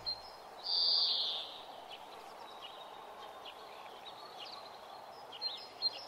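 Birds chirping over a faint steady outdoor hiss. One louder, rasping call comes about a second in and lasts about a second, and short thin chirps follow, with a few quick ones near the end.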